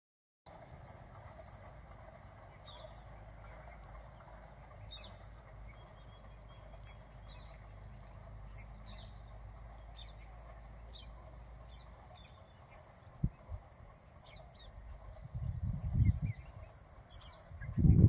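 Rural outdoor ambience: insects chirp in a steady, evenly repeating rhythm and small birds make short chirps over a low background rumble. Near the end, loud low buffeting hits the microphone in two spells, the second the louder.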